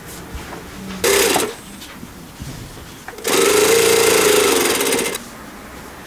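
JUKI industrial lockstitch sewing machine stitching fabric in two runs: a short half-second run about a second in, then a longer run of nearly two seconds.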